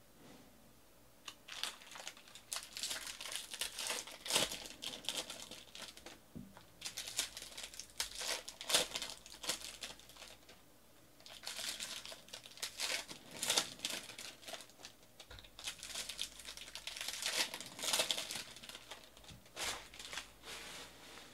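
Crinkling and tearing of Bowman baseball card pack wrappers being ripped open by hand, in three spells of busy rustling with short pauses about six and eleven seconds in.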